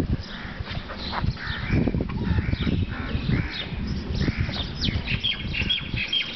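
Crows cawing repeatedly, one call every half second to a second, over low irregular thuds and rumble.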